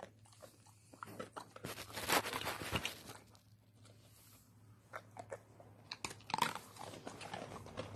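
A dog crunching and chewing hard biscuit treats taken from a puzzle toy, in crackly bursts about two seconds in and again around six seconds.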